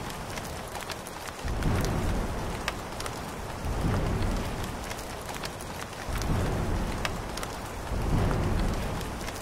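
Steady rain with scattered sharp drop ticks, and low rumbles of thunder swelling about every two seconds, four times.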